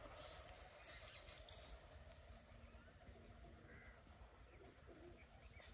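Near silence: faint outdoor ambience with a few faint, short animal calls.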